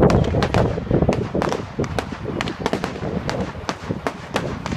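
Aerial fireworks going off in quick succession: a loud bang at the start, then a dense run of sharp cracks and pops over rumbling booms.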